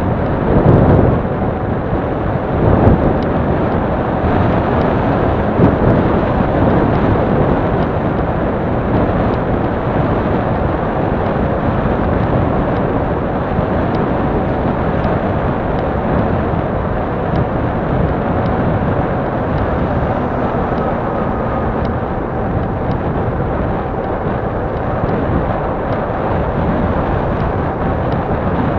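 Steady rushing noise of wind on a handlebar-mounted action camera's microphone, mixed with bicycle tyres rolling on an asphalt path, with a couple of louder bumps in the first few seconds.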